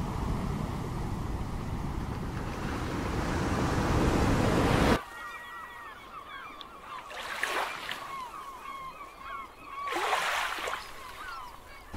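Ocean surf washing steadily. About five seconds in, it cuts abruptly to a quieter recording of waves breaking twice under a flock of birds calling in many short chirps.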